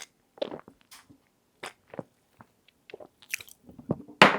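Close-miked drinking sounds: a string of separate sips and throat swallows with wet mouth clicks, about one every half second, the loudest gulp near the end.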